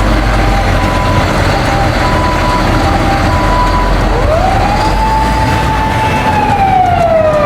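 Fire engine siren over a low engine rumble: first a two-tone alternating pattern, then about four seconds in a wail that rises, holds and falls away near the end.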